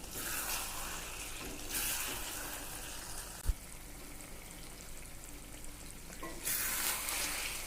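Chicken and thick spice masala sizzling as they fry in a pan, the hiss swelling in a few stretches as the pan is stirred. A short thump about three and a half seconds in.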